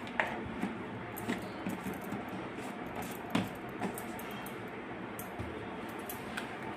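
Light handling sounds of a plastic salt jar and its lid being closed and set down: a few scattered small clicks and taps over a steady hiss.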